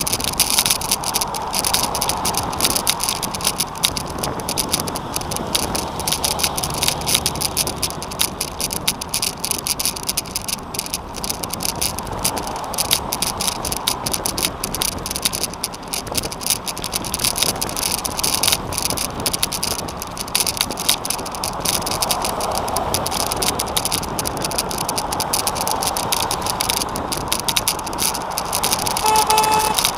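Velomobile riding along the road, its shell rattling and clicking steadily over the road surface with tyre noise. A short horn toot near the end.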